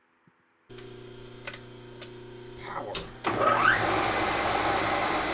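Milling machine running: a steady motor hum starts suddenly, with a few sharp clicks. About three seconds in, a rising whine leads into a louder, steady whir.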